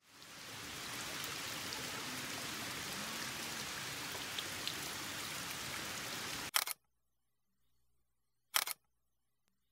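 Water running steadily from a pipe into a stone basin, a continuous hiss that fades in and cuts off suddenly about six and a half seconds in. Two brief bursts of noise follow, about two seconds apart.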